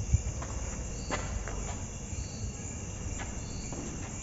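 Night insects: a cricket gives a short high chirp a little more than once a second over a steady high-pitched insect hiss. A low thump comes right at the start, with a few faint scuffs and clicks.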